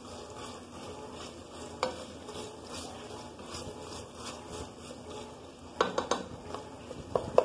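Slotted spoon stirring and scraping browned ground sausage around a ceramic-lined pot, over a light sizzle of fat. One knock about two seconds in, and a quick run of spoon taps against the pot about six seconds in and again just before the end.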